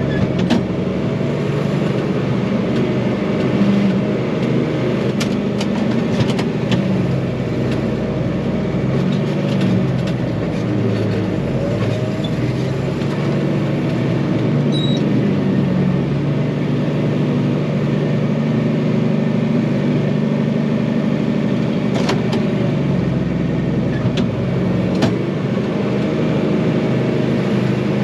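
John Deere 2955 tractor's diesel engine running under working load, its note shifting now and then as the throttle and load change, with a few sharp clanks.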